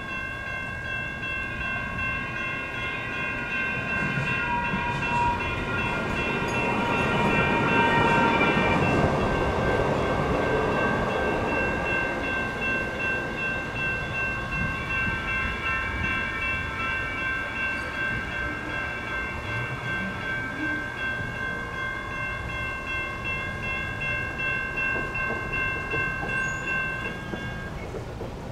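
Railroad crossing electronic bells ringing steadily while a Siemens-Duewag U2A light rail train passes, its rumble swelling to a peak about eight to ten seconds in and then fading. The bells cut off near the end as the crossing deactivates.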